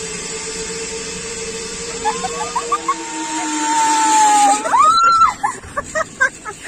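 A zipline trolley runs along its steel cable with a steady whirring hiss. A woman riding the line screams, first in a long held cry, then in a sharp rising-and-falling scream about five seconds in, followed by short exclamations.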